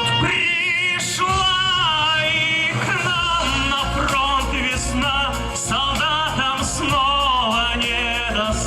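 Live music: the introduction to a slow song, a melody line with strong vibrato over steady accompaniment.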